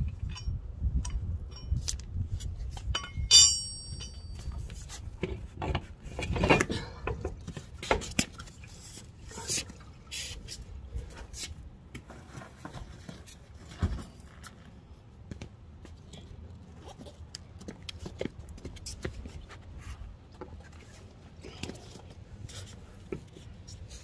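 Metal clinks and scrapes of a lug wrench working the wheel nuts on a Kubota BX tractor's rear wheel, with one sharp ringing metallic strike about three seconds in, the loudest sound. Scattered knocks and scrapes follow as the wheel hardware is handled.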